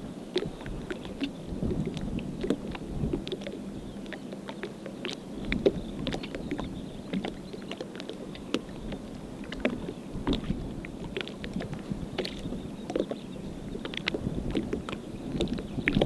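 Small waves lapping and splashing irregularly at a shallow sea shore, a patter of many small, uneven splashes. Low wind rumble on the microphone rises near the start and again near the end.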